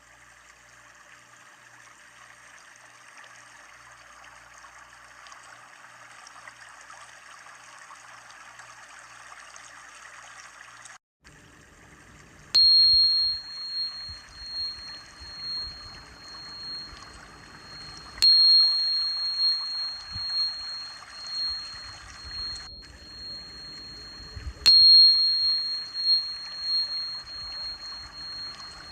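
A small high-pitched bell, used for sound therapy, struck three times about six seconds apart, each strike ringing on long as one clear tone. Under it runs a steady hiss that breaks off briefly a little after ten seconds.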